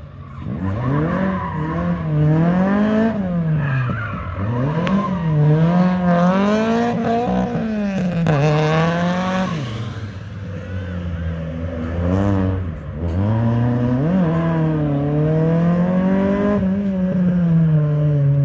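Opel Kadett GSI's four-cylinder engine revving hard as the car is driven through a slalom course, the revs climbing and dropping every second or two with each throttle lift and gear change. Tyres squeal briefly around the middle.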